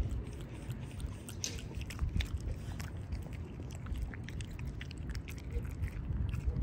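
French Bulldog chewing raw chicken, with many short wet crunches and lip smacks in quick succession.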